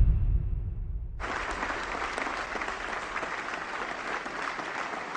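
Audience applauding. The clapping starts suddenly about a second in, as the tail of a music track dies away.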